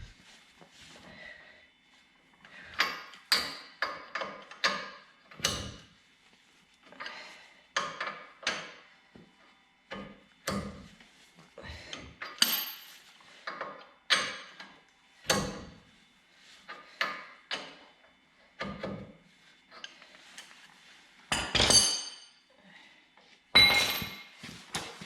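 Hand tools knocking and clinking against steel suspension parts in an irregular series of sharp strikes, some ringing briefly, with the loudest hits near the end.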